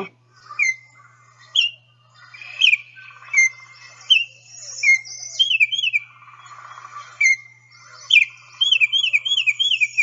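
Male Baltimore Oriole singing: clear whistled notes, mostly given singly with short gaps, then a quick run of about five near the end.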